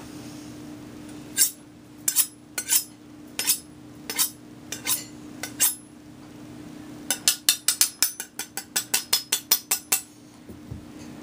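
Sharp clinks of hard objects striking: about nine spaced irregularly over the first half, then a quick run of about six a second for some three seconds, over a steady low hum.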